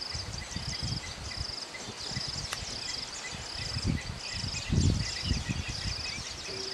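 An insect chirping in short, even buzzes, about three every two seconds, over uneven low rumbling that is loudest about five seconds in.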